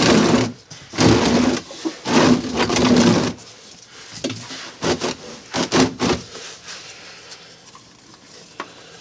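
Handling noise from an oil change under a pickup: scraping and clatter as a plastic oil drain pan is shifted, in three loud bursts over the first three seconds. A few lighter knocks and taps follow as the oil filter is worked loose by hand.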